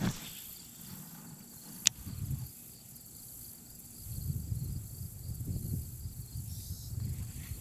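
Steady high chirring of insects, with uneven low rumbling and one sharp click about two seconds in.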